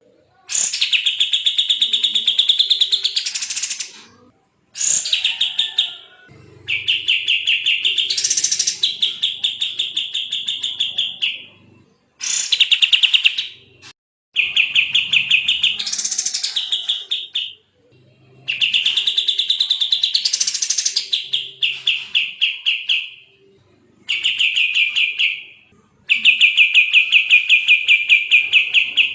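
Kapas tembak singing fast, dense trills of rapidly repeated chirping notes, in phrases of a few seconds broken by short pauses.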